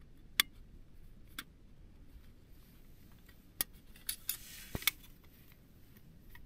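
Scattered light clicks, then a short crinkly rustle with a few more clicks a little after halfway, as a folding metal camp-stove windshield is handled and opened out.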